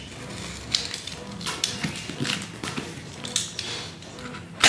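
A cardboard box being handled and its packing tape cut with a utility knife: scattered scrapes, taps and clicks, the loudest near the end.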